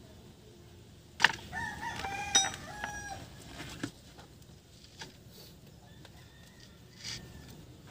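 A rooster crowing once, starting about a second in and lasting about two and a half seconds.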